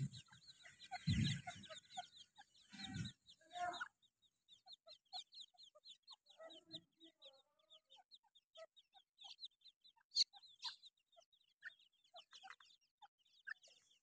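A brood of francolin chicks peeping, many short high calls in quick succession, with the hen's soft lower clucks scattered among them. A few low bumps and rustles in the first few seconds.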